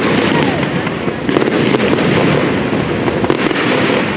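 Fireworks display going off continuously: a dense run of crackles, pops and bangs with barely a gap between them, easing slightly near the end.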